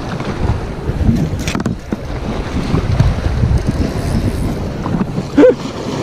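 Wind buffeting the microphone over small waves washing against shore rocks. A short pitched blip near the end is the loudest moment.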